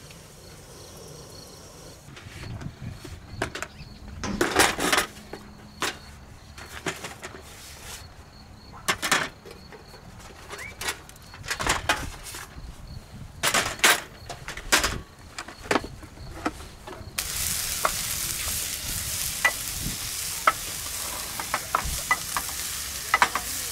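Scattered clicks and knocks, then about 17 s in a steady sizzle with small pops starts: food frying.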